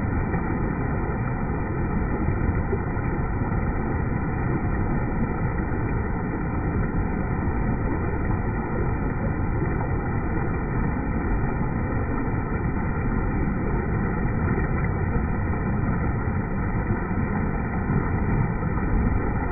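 Steady rush of river water pouring over a dam's spillway and churning over rocks, dull and muffled with little treble.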